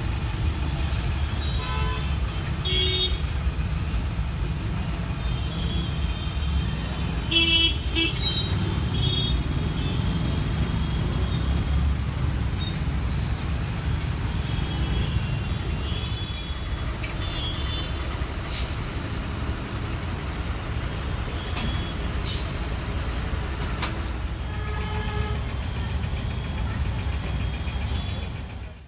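Road traffic with a steady low rumble and short vehicle-horn toots now and then, the loudest about seven seconds in. It fades out at the very end.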